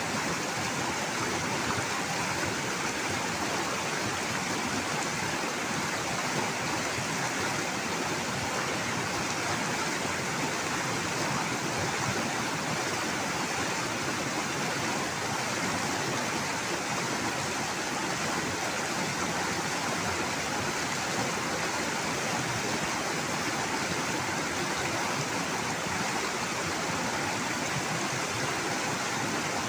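Fast, shallow river rapids rushing over rocks, a steady, unbroken sound of water.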